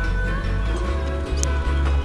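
Background music with a heavy bass line and held tones, with a few sharp percussive hits.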